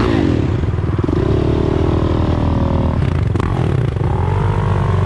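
Dirt bike engines running close by, the revs rising and falling several times, with a single sharp click partway through.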